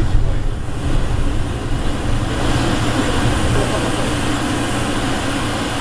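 Denver airport's rubber-tyred automated people-mover train running through an underground tunnel, heard from inside the car as a steady low rumble with a haze of rolling and air noise.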